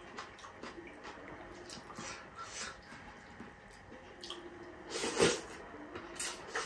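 Close, wet eating sounds: fingers picking through a dressed noodle and shrimp salad on a plate, with soft moist clicks and lip smacks of chewing. A louder wet smack comes about five seconds in.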